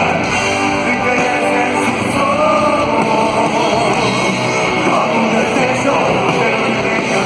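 Rock band playing live at a steady loud level, with electric guitars prominent in the mix.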